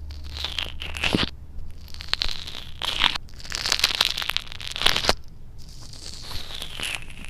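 Slime being played with by hand, making a series of short noisy bursts about once a second.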